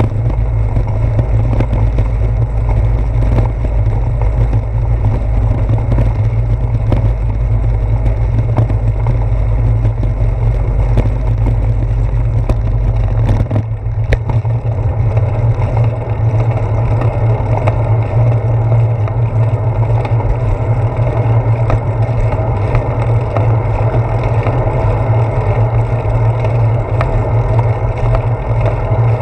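Steady low rumble of wind and road vibration picked up by a handlebar-mounted GoPro on a moving bicycle. The deepest part of the rumble drops away about halfway through.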